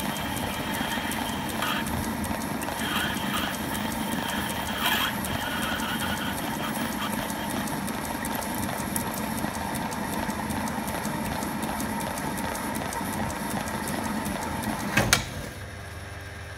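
Small metal lathe running steadily while machining brass bar stock, with a fine rapid ticking over its motor noise. About fifteen seconds in a sharp clank, after which the machining noise drops away to a lower, quieter hum.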